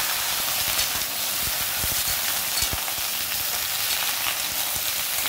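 Chunks of potato, green banana, brinjal and pointed gourd sizzling steadily in hot oil in an aluminium kadai as they are stirred with a spatula, with a few soft knocks about two seconds in.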